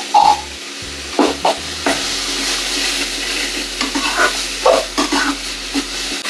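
Tomato-onion masala sizzling in hot oil in a metal kadai while a spatula stirs it, scraping and clinking against the pan a few times about a second in and again around four to five seconds. The masala is being fried down until the oil separates.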